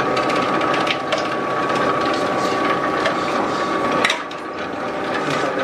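Robot Coupe vegetable preparation machine running, its motor giving a steady whine while a cucumber is pushed down the cylindrical feed tube and cut by a 2 mm slicing disc. A knock comes about four seconds in, after which it runs a little quieter.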